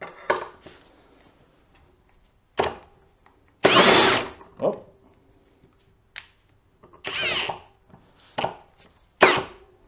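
Ridgid Max Output cordless hammer drill straining to drive a long screw into a timber beam with no pilot hole. It goes in short, repeated trigger bursts, about eight in all, the motor pitch rising and falling under load. In speed one it lacks the power to drive the screw.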